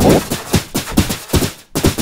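Cartoon pencil-drawing sound effect: a quick run of short scratchy strokes, about five a second, each dropping in pitch.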